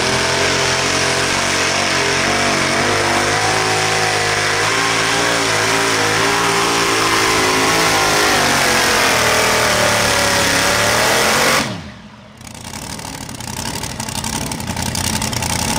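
Supercharged engine of a light modified pulling tractor running at full throttle under load through a pull, its pitch wavering up and down. About eleven and a half seconds in it cuts off suddenly and winds down, followed by a quieter steady noise.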